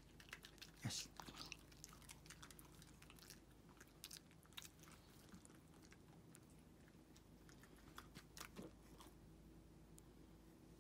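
Near silence with faint, scattered clicks and smacks of a Shiba Inu chewing a small treat, a little louder about a second in and again around eight seconds in.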